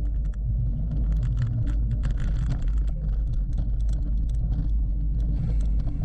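Wind rumbling on an action camera's microphone while a bicycle is ridden hard over rough ground, with frequent clicks and rattles from the bike throughout.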